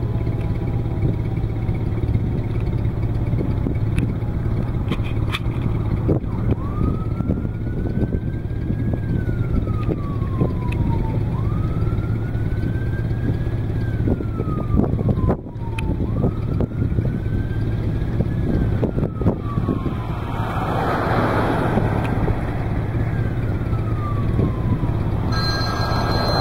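A siren wailing, its pitch rising and falling in a cycle of about five seconds, over a steady low rumble. A phone starts ringing near the end.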